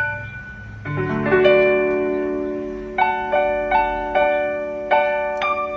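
Piano-style keyboard playing a short phrase of struck notes and chords, each ringing on and slowly fading, with a quicker run of strikes in the second half.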